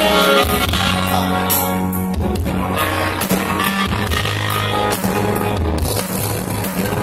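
Loud dance music with a steady beat, a bass line and singing.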